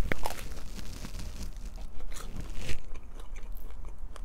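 Bite into a chicken samosa: a sharp crunch of the fried pastry shell at the start, then irregular crunching as it is chewed.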